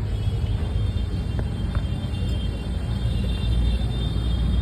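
Maruti Suzuki Swift Dzire engine running at a steady idle: a low, even rumble with a faint steady high whine above it.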